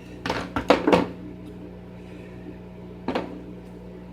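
Tools and small objects being handled on a workbench: a quick cluster of four or five clicks and knocks in the first second and another knock about three seconds in, over a steady low electrical hum.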